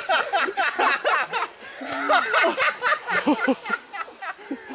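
Several people's voices talking and laughing over one another, close by.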